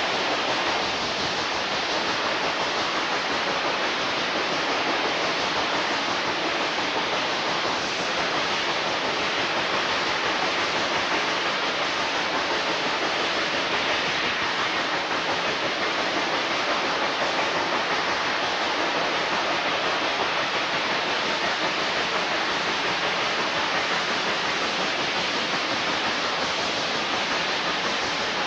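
Steady rushing noise of a moving train, heard from an open car window: wind over the microphone mixed with the running noise of the cars, with no chuffs or whistle standing out.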